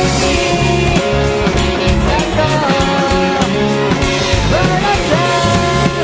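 Live pop-rock band playing: a man sings the lead line over electric guitar, bass guitar, drums and keyboards.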